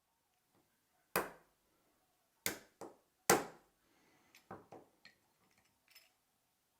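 Sharp knocks as the pivot pin of a SRAM Red shifter lever is banged back into the shifter body: four strikes in the first three and a half seconds, the last the loudest, then a few lighter clicks and knocks.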